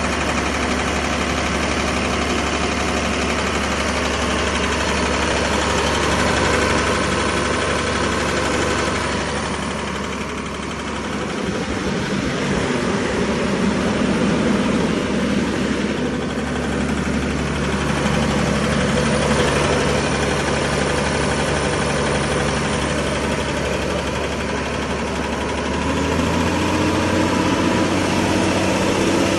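Hongwuhuan HG650-16C 194 kW, 16-bar air compressor running steadily with a loud mechanical drone. Its pitch changes about a third of the way in and again near the end.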